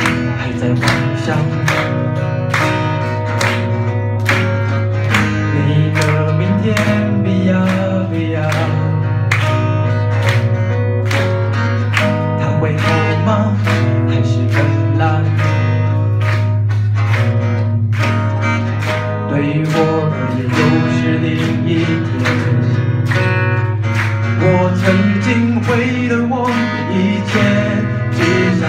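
Two acoustic guitars strummed in a steady rhythm, with a man singing into a microphone through the PA and a steady low hum underneath.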